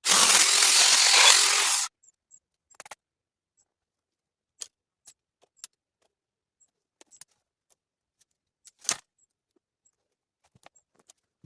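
Hedge trimmer running in a short burst of about two seconds, its blades chattering, then cutting off sharply. After it, scattered light clicks and snaps, with one louder snap near nine seconds.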